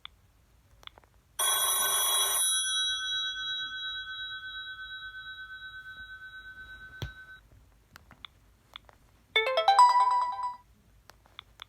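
Preloaded Sony Ericsson C510 phone tones playing one after another. The first is a bright burst that leaves a long electronic ringing tone, wavering and fading away over about five seconds. After a short pause comes a quick run of bright notes lasting about a second.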